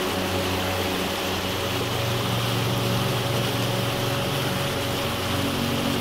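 Creek water rushing and splashing over and around boulders in a steady rush.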